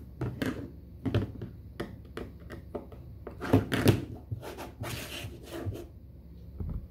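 Handling clicks and knocks of a plastic solderless breadboard with a screwed-on back plate being turned over and set down on a cutting mat, with a screwdriver in hand, loudest about three and a half to four seconds in. A short scrape follows about a second later.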